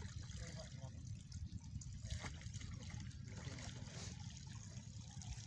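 Light trickling and splashing of river water as men standing waist-deep lift and work cast nets, over a steady low rumble.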